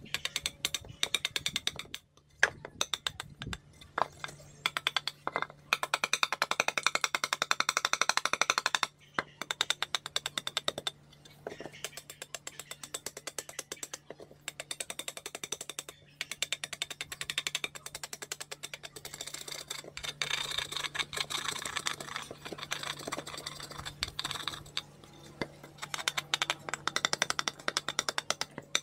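A metal blade chopping and scraping at a wooden bowl blank to shape it: fast runs of many light strokes, with short pauses between the runs. A faint steady low hum runs underneath.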